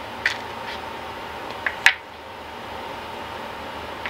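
Three short sharp clicks of small parts being handled while a Husqvarna 50 Rancher chainsaw's recoil starter spring is worked into its housing, the last and loudest about two seconds in, over a steady background hiss.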